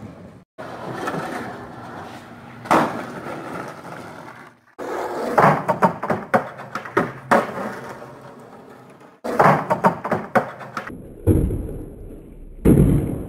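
Skateboard wheels rolling over concrete and asphalt, with sharp clacks of the board popping and landing several times. The sound starts and stops abruptly a few times.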